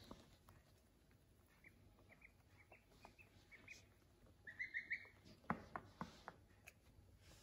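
Ducklings and a gosling peeping: a scatter of soft, high peeps, then a louder run of four quick peeps about four and a half seconds in, followed by a few sharp taps of beaks pecking at the windowsill.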